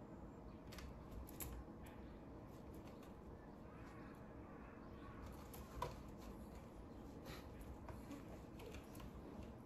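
Faint, scattered scratches and soft taps from a kitten batting at a pom-pom wand toy against a sisal-rope cat-tree post, with one sharper tap about six seconds in, over quiet room tone.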